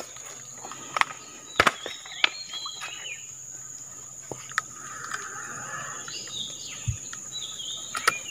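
Tropical riverbank ambience: a steady high insect drone with short falling bird chirps now and then. A few sharp clicks from the fishing rod and reel being handled.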